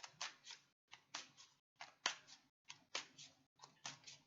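A deck of tarot cards being shuffled by hand: a steady run of crisp card snaps and rustles, about two clusters a second.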